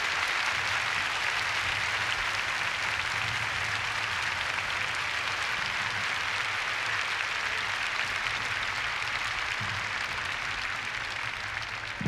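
Congregation applauding in praise, a long steady round of clapping that eases off slightly near the end.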